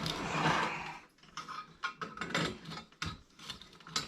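Metal tool work on a Coleman 220F lantern: a crescent wrench scraping and then clicking and knocking against the lantern's steel parts as it is set to turn a fitting loose.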